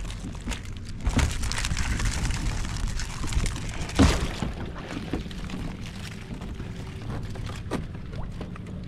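Water splashing and pouring around a kayak as a wire crab pot full of blue crabs is handled on it, with scattered knocks and one sharp, loud knock about four seconds in.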